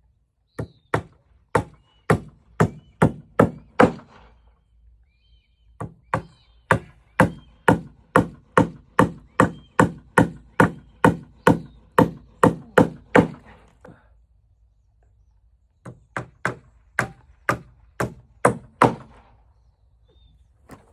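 Claw hammer driving nails by hand into wooden risers: three runs of sharp, steady strikes, about two a second, with short pauses between nails.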